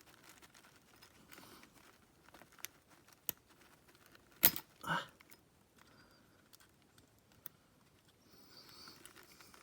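Faint metal clicks and taps of small picks working a tiny circlip onto a shaft, with a few scattered ticks, one sharp click about four and a half seconds in and a short scrape just after it.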